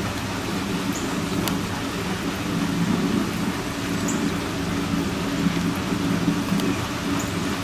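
Steady rain hiss, with a low drone underneath and a few faint high ticks.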